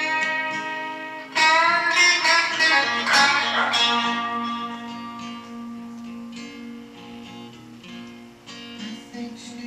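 Acoustic and electric guitar playing an instrumental passage together with no singing. About a second and a half in, a loud phrase with wavering, bent notes comes in, then dies away into quieter ringing notes over a held low note.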